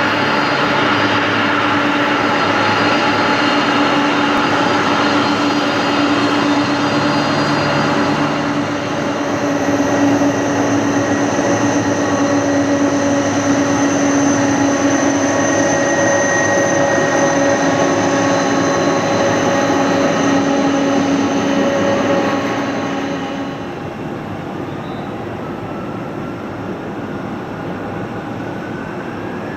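Boeing 767-300 jet engines running at close range: a steady rush with several held whining tones. About two-thirds of the way through the sound drops off, and near the end a whine starts to rise in pitch.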